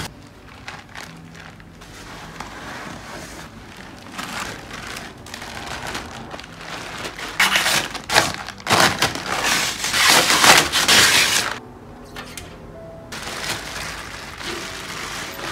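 Clear plastic wrapping crinkling and rustling as it is handled and pulled off a turntable and its dust cover, in irregular bursts that are loudest in a long stretch past the middle. Soft background music underneath.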